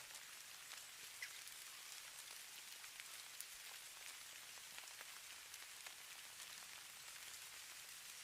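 Faint, steady patter of falling snow: many tiny ticks over a soft high hiss.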